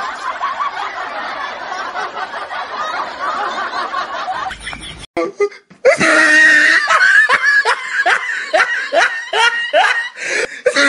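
Laughter laid over the clips: a dense mix of several voices laughing for the first five seconds, then after a short break a single laugh in repeated rising ha-ha pulses, about two a second.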